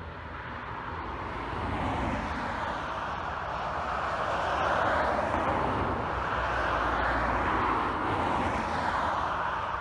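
Turboprop engines of an ATR twin-turboprop airliner running as it taxis past, a steady propeller-and-engine drone over a low rumble. It swells over the first couple of seconds, holds, then eases slightly near the end.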